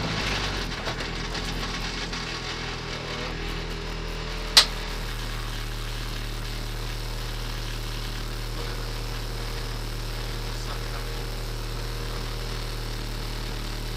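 Renault Clio RS rally car's four-cylinder engine settling as the car slows to a stop, then idling steadily from about five seconds in. A single sharp click comes just before the idle steadies.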